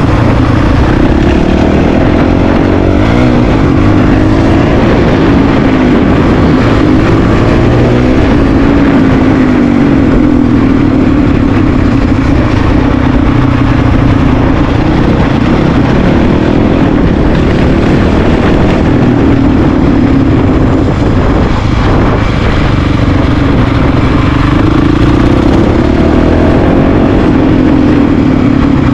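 Honda CRF450RL's single-cylinder engine running under way, heard from on board, its pitch rising and falling with the throttle over a steady rushing noise.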